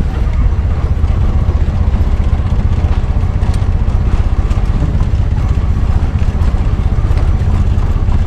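Steady low rumble of a motor vehicle in motion, its loudness fluttering constantly.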